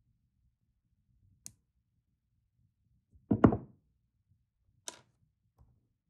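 Sharp clicks of plastic pin-header strips being snapped with needle-nose pliers, once about one and a half seconds in and again near five seconds, with a louder knocking clatter on the wooden desk around the middle as the pliers are laid down.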